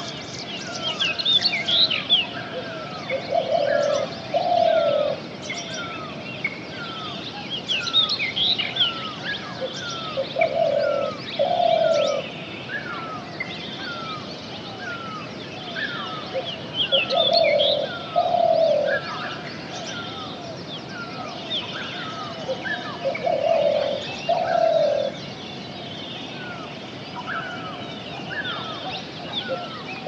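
Several forest birds calling. The loudest sound is a pair of low, drawn-out notes that comes back every six to seven seconds, over a steady run of short falling whistles, a little more than one a second, and bursts of higher twittering.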